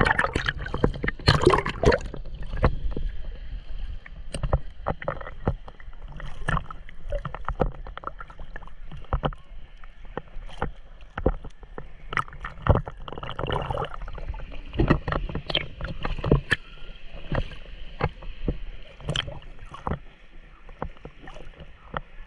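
Seawater sloshing and splashing against a camera held at the water's surface, with frequent small slaps and gurgles. The splashing is heaviest in the first couple of seconds, as the camera comes up out of the water.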